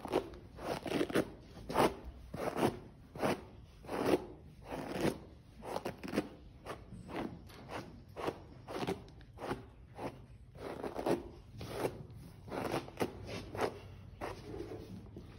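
A hand brush drawn through a horse's mane in repeated strokes, a little more than one a second, growing fainter near the end.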